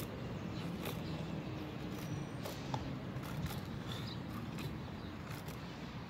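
Splitman GHK6 multitool's plain-edged blade cutting into a small wooden stick, making short, irregular scraping clicks over a steady outdoor background.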